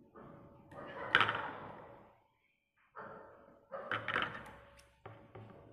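Handling noise from a cloth mask and its ear loop being worked on a sewing machine table: about five knocks and rustles, each starting sharply and fading over up to a second, over a faint steady hum.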